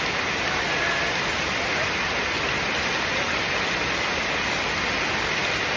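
Steady rain falling, an even hiss that holds level.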